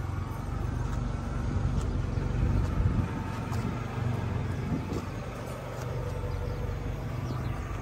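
1996 Nissan Atlas truck's engine idling, a steady low rumble.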